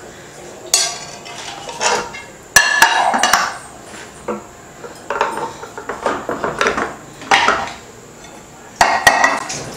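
Glass baking dish clattering and knocking against a plate as it is turned upside down to turn out the set halwa: a series of separate knocks, the loudest cluster about two and a half seconds in.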